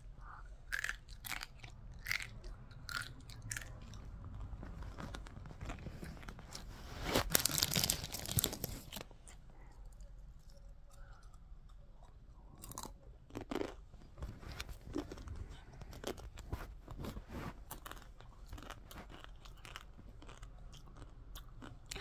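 A person chewing and crunching food close to the microphone, in irregular crunches, with a louder stretch about seven seconds in.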